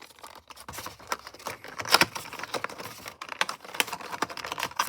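Diecast model car being worked out of its packaging: a flurry of small, irregular clicks and rattles of plastic and cardboard, loudest about two seconds in.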